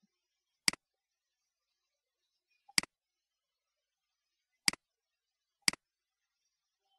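Four computer mouse-button clicks, each a quick double tick of press and release, spaced one to two seconds apart.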